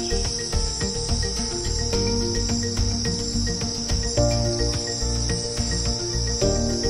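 Ambient background music: held chords that change about every two seconds over a deep bass, with a steady high-pitched chirring underneath.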